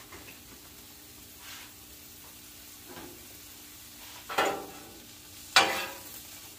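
A metal spatula scraping across the steel top of a Blackstone griddle as it pushes frozen broccoli florets around, with two loud scrapes near the end, the second the loudest, over a faint sizzle from the frozen florets on the hot plate.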